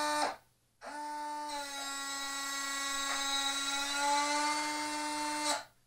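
Electric retractable landing gear motor of a large RC jet running with a steady whine. It stops briefly just after the start, then runs again for nearly five seconds as the trailing-link gear leg swings out of the wheel well, and cuts off suddenly near the end.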